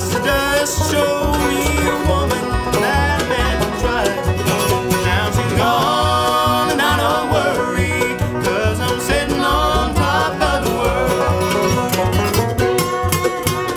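Bluegrass string band playing live: banjo, mandolin, acoustic guitar, fiddle and upright bass, with a lead vocal and a high harmony voice singing in the middle. The upright bass keeps a steady, even pulse underneath.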